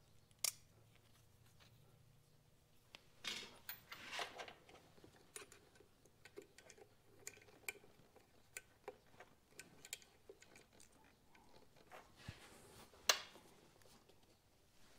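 Faint clicks, taps and scrapes of a screwdriver and small metal parts as a carburetor clamp is fitted and snugged up, with a sharper click near the end.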